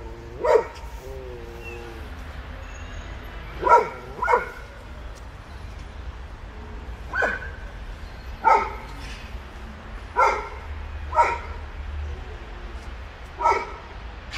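Stray cats squaring off, giving about eight short, sharp calls spaced a second or two apart, with a wavering drawn-out call after the first one: a female cat rebuffing a pestering tom.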